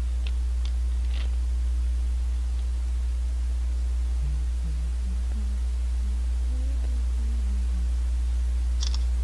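A steady low hum runs under everything. From about four seconds in, a man hums a short tune of a dozen or so stepped notes. There are a few light clicks near the start and one near the end.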